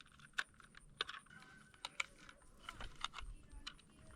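Irregular light clicks and taps of small hard parts being handled, several a second, over a faint steady hum.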